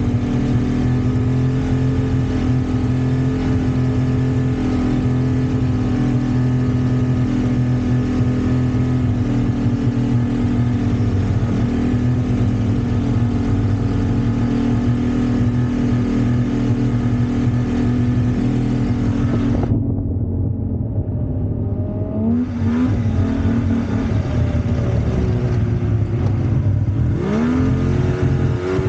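2001 Yamaha VMAX 600 snowmobile's three-cylinder two-stroke engine running steadily at a constant pitch while being ridden. About twenty seconds in it goes lower and duller as the throttle eases, then revs back up twice near the end.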